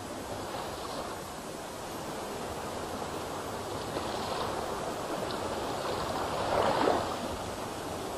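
Water swishing and lapping around a wooden boat being poled through a reed marsh, a steady wash that swells louder a little before the end.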